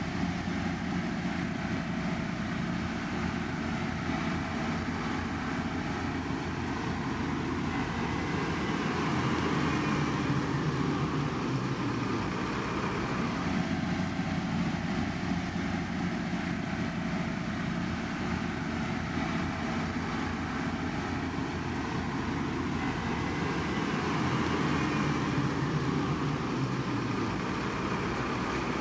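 Steady engine and machinery noise of heavy road-construction equipment, a continuous rumble and hiss that swells and repeats about every fifteen seconds.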